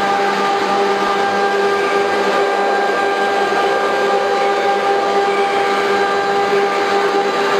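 ATC CNC router spindle running and cutting door-panel profiles into a board: a steady whine of several tones over a rushing noise of cutting and dust extraction.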